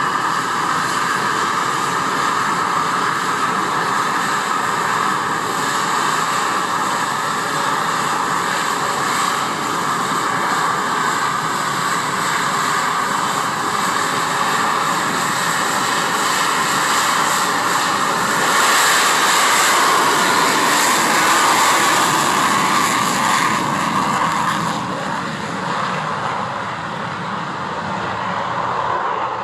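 English Electric Lightning's twin Rolls-Royce Avon turbojets running, a loud steady jet noise with a high hiss. It grows louder about two-thirds of the way through, then eases off near the end.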